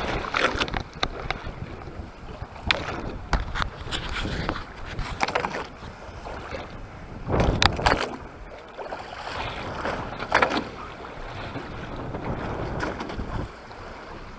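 Wind blowing over the microphone and choppy sea water slapping and washing against a boat's hull, with irregular knocks and splashes; the loudest come about seven and a half and ten seconds in.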